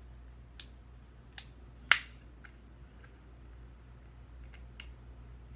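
About five small, sharp clicks and taps, the loudest about two seconds in, from fingernails picking at a stuck-on sticker on a makeup highlighter compact.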